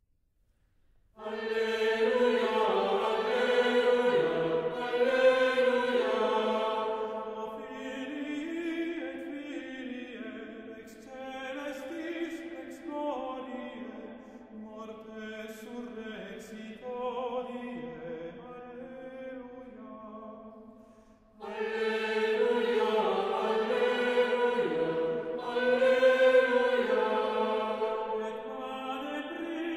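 Gregorian chant: slow sung phrases starting about a second in, with a brief pause about two-thirds of the way through before the singing picks up again, louder.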